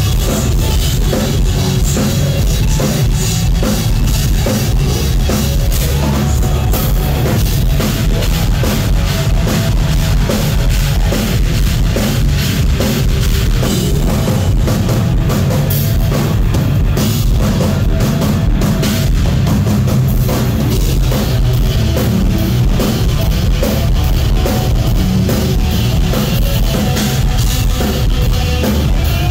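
Heavy metal band playing live, loud and unbroken: a drum kit with a pounding kick drum under electric guitars.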